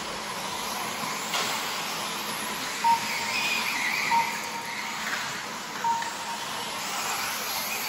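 Radio-controlled 4WD racing buggies running on the track, motors whining up and down in pitch through the middle. Three short beeps from the lap-timing system sound about three, four and six seconds in as cars cross the timing line.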